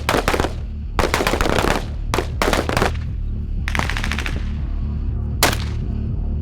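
Bursts of automatic gunfire in live firing: several short, rapid bursts of shots in the first four and a half seconds, then a single shot about five and a half seconds in. Background music with steady low tones plays underneath.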